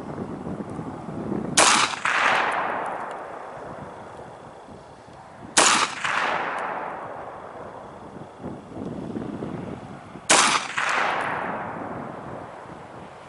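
Three single rifle shots about four seconds apart, each a sharp crack followed by a long echo that dies away over a second or two.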